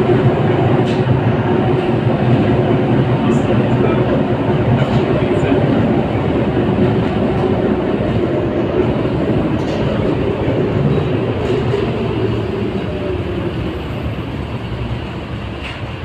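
LVS-86K articulated tram running along the track, heard through an open vent window: a continuous rumble of wheels on rail with a steady motor whine and a few scattered clicks. It grows gradually quieter over the last few seconds as the tram slows toward its stop.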